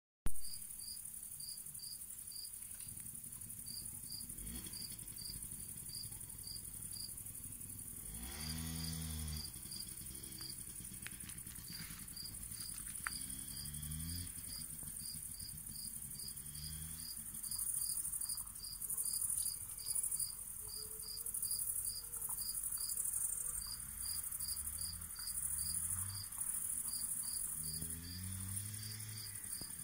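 Crickets chirping in a steady, regular rhythm. A low engine sound rises in pitch and swells several times, about a third of the way in and more often in the second half.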